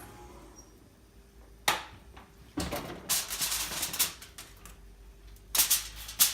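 Kitchen handling noise from a baking dish being covered and put in the oven: a sharp knock about two seconds in, then a second and a half of dense crackling and rattling, and another burst of clicks near the end.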